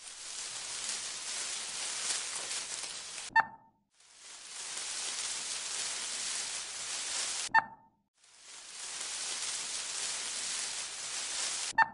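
Electronic static hiss in three stretches of about three and a half seconds, each cut off by a short, sharp beep, with the beeps coming about every four seconds.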